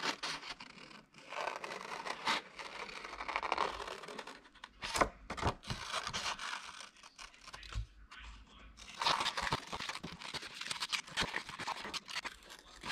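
Scissors cutting around a drawing on paper: a run of short snips mixed with paper rustle. It is busier in the first few seconds and again near the end.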